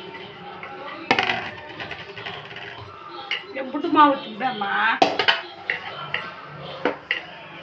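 Kitchen clatter: a few sharp clinks and knocks of steel vessels and utensils on the counter. About four seconds in, a short pitched sound bends up and down.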